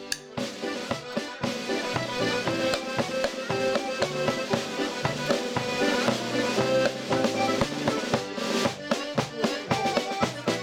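Irish traditional dance tune played on piano accordion and button accordion, brisk runs of notes over a steady pulsing beat.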